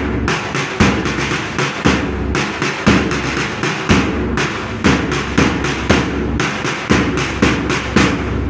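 Music with a steady drum beat, about two strikes a second, over a sustained low pitched accompaniment.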